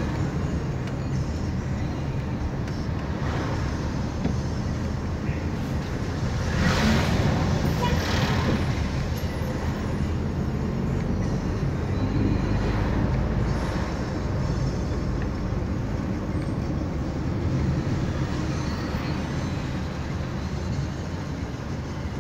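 Car driving on the road, heard from inside the cabin: a steady engine hum and tyre noise, with the noise rising briefly a few times.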